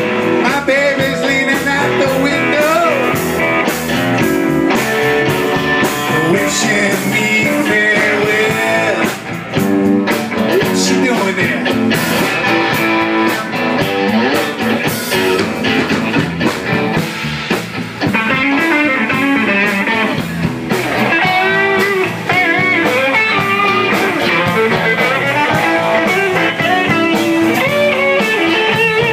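Live blues band playing an instrumental break, led by guitar, with a lead line of bending, wavering notes over the band.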